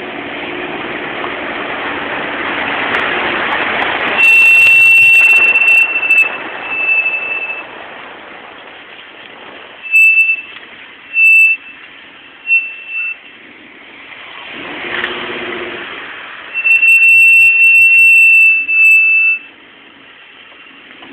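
Jeep SRT-8 brakes, Hawk LTS pads on Stillen slotted rotors, squealing in one high, steady tone: a long squeal about four seconds in, several short chirps, then another long squeal near the end, over road noise. The owner says the squeal is typical of the SRT-8 but has now become persistent and won't go away.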